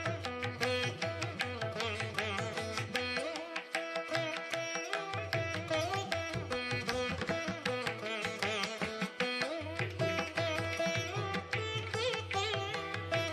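Instrumental background music in an Indian classical style: plucked string notes with bending melody over a steady drone. A low drum beat drops out for a second or two about a third of the way in.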